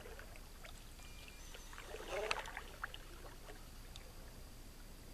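Paddle strokes from a small boat: the paddle dips and drips in the water with light splashes and small knocks, and the loudest stroke comes about two seconds in.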